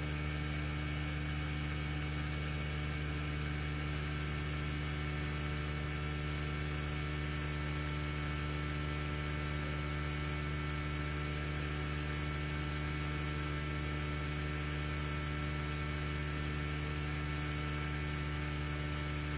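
An electric fan running: a steady hum made of several constant tones, unchanging throughout.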